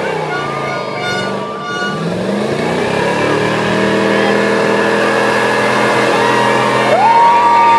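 1953 Ford F-100 pickup's engine held at high revs during a burnout, rear tyres spinning on the tarmac; the revs climb around two seconds in and again sharply near the end.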